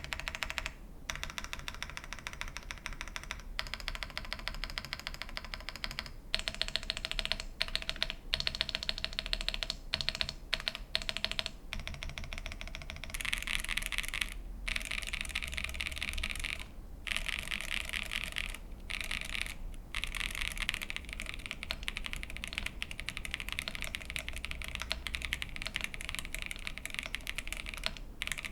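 Typing on a VARO V87 Pro gasket-mount mechanical keyboard with factory-lubed Cidoo switches, a PC plate and PBT keycaps. The keystrokes come in a fast, steady run, broken by a few short pauses.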